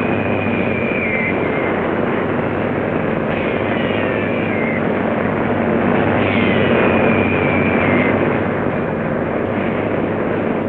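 Battle sound effects on a wartime film soundtrack: a dense, steady roar of combat noise with high whistles that fall in pitch, three times.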